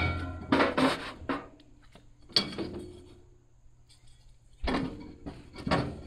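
Metal grill cooking grates being set back into a gas grill, clanking and rattling against the firebox and each other, each knock ringing briefly. There are several clanks in the first second and a half, one about two and a half seconds in, then a quiet stretch before more clanks near the end.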